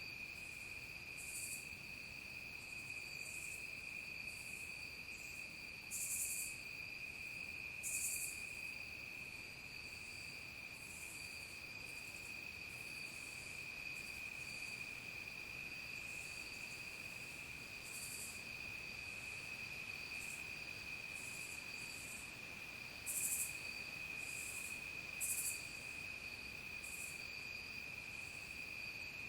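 Evening insect chorus: crickets trilling in one steady, unbroken high tone. Short, very high buzzy insect calls break in now and then over it, the loudest a few times through.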